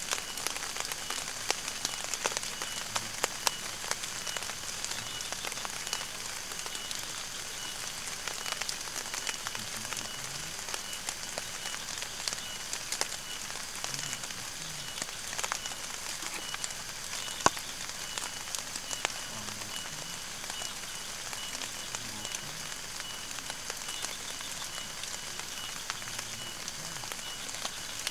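Rain falling steadily, with many separate drops tapping, and a faint pulsing insect call running high in the background.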